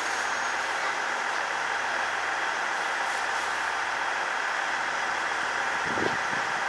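Steady hum and hiss of the Kirakira Uetsu, a converted 485-series electric train, running slowly some distance off as it pulls out. A few short low thumps come near the end.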